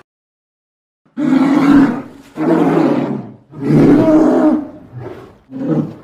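Big cat roaring, a run of loud rough roars about one a second, starting after a second of silence.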